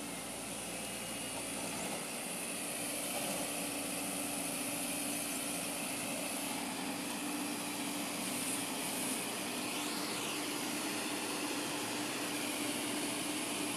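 Heavy diesel engine idling steadily, with a constant low hum.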